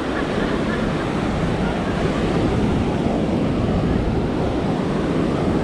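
Ocean surf washing on a sandy beach, a steady rushing noise, with wind buffeting the microphone.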